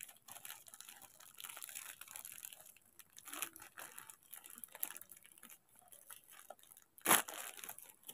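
Plastic courier mailer bag crinkling and crackling in irregular rustles as fingers pick and pull at its sealed end, with one louder sharp crackle of the plastic about seven seconds in.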